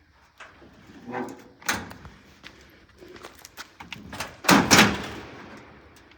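A string of scattered knocks and clunks, as of hard objects being handled and set down. The loudest is a pair of bangs close together about four and a half seconds in, trailing off over about a second.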